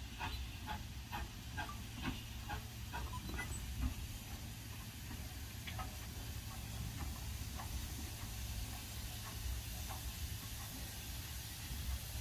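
Taff Vale Railway Class O2 0-6-2 tank engine No. 85 moving slowly, its exhaust beating softly about two times a second over a steady hiss of steam; the beats thin out after about four seconds as it drifts on.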